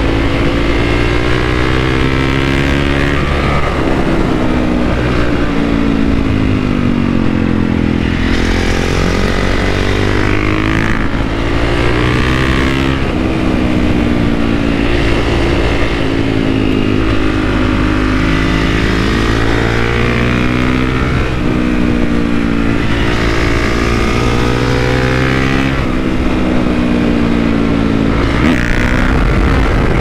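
Honda CRF450R single-cylinder four-stroke engine through a Yoshimura RS-12 titanium exhaust under way, its pitch climbing and dropping again and again with the throttle.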